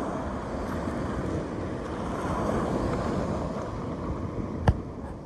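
Wind buffeting the microphone, a steady low rumbling rush, with one sharp click near the end.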